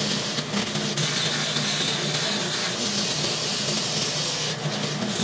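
Ridgid oscillating spindle sander running steadily while a wooden drawer front is pressed against its sanding drum to shape a cutout handle: a low motor hum under the hiss of abrasive on wood.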